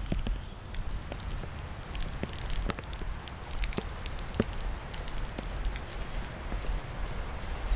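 Steady rain with many scattered, irregular drop clicks, over a low rumble.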